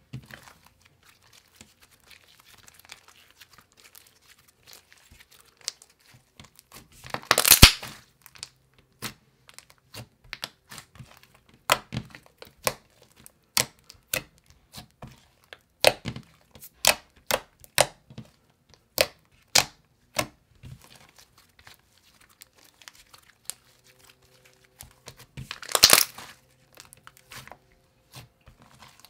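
Hands squishing and kneading a soft clay slime with foam beads in it: scattered sticky clicks and pops. There are two louder crackling bursts, each about a second long, about 7 seconds in and again near the end.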